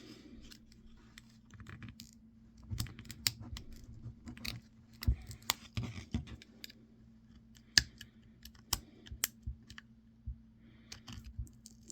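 Irregular small clicks and taps of plastic and metal cell-phone parts being pried apart and handled with small hand tools.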